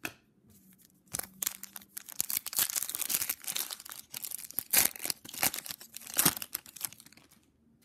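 A foil trading-card pack wrapper being torn open and crinkled in the hands. It makes a dense run of sharp crackles starting about a second in and lasting roughly six seconds.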